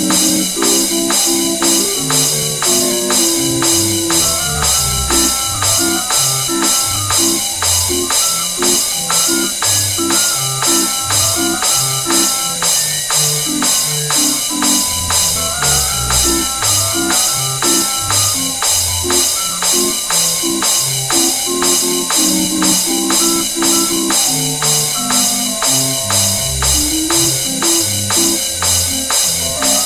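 Barrel-organ tune with a moving bass line and a steady beat of jingling, cymbal-like percussion.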